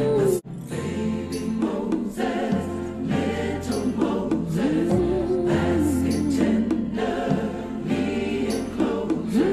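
Choral music: voices sing a slow melody that rises and falls over a held low bass note, with a brief dropout about half a second in.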